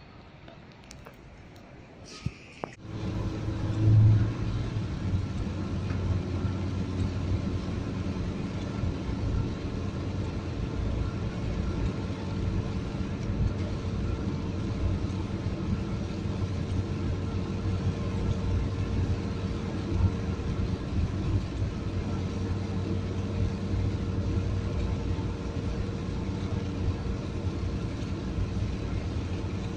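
Steady vehicle drone with a low hum that starts abruptly about three seconds in, after a few quiet seconds with a couple of clicks.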